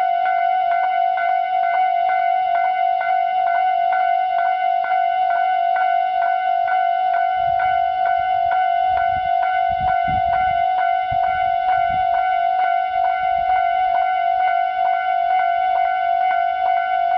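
Japanese railway level-crossing alarm ringing loudly, its standard electronic bell tone struck in a fast, even repeat of about two to three dings a second. A low rumble comes and goes in the middle.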